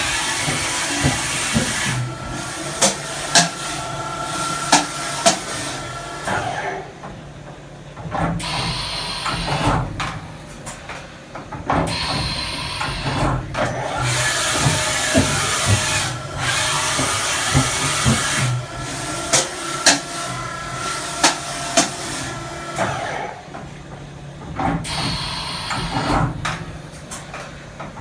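Vertical machining center running, with hissing spells of a few seconds each alternating with quieter gaps, and scattered sharp clicks.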